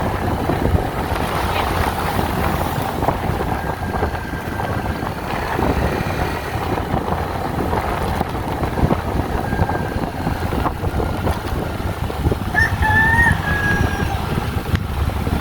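Steady wind rumble on the microphone, with a rooster crowing once near the end.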